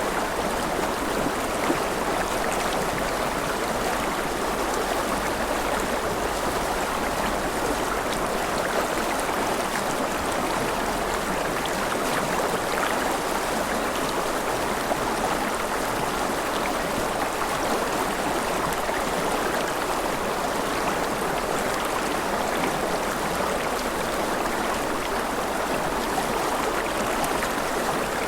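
Mountain river flowing over rapids: a steady rush of water.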